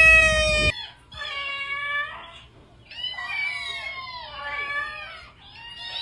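A grey kitten's long, steady meow that cuts off abruptly less than a second in, followed by several kittens mewing in short, high-pitched, overlapping calls that rise and fall.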